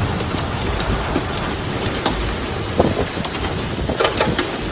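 Heavy rain pouring down in a thunderstorm: a dense, steady hiss of rain on the ground, with a few sharp ticks from about three seconds in.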